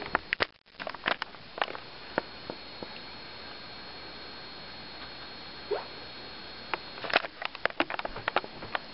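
Scattered light clicks and taps: a few in the first two seconds, then a quick run of them near the end, with one short squeak about two-thirds of the way through.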